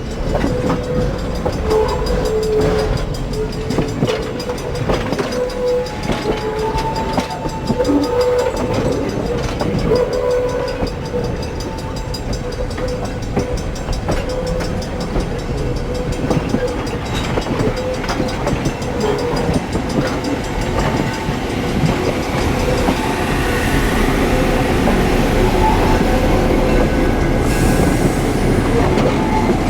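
Passenger train running along the track: a steady rumble with rattling and clickety-clack from the wheels, and a faint held tone through the first half. It grows slightly louder over the last few seconds.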